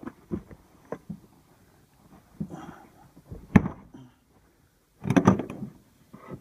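Car rear seat cushion being pulled up and out: clicks and knocks from the seat's clips and frame, with rustling of the fabric and foam. One sharp knock a little past halfway, and a dense clatter about five seconds in.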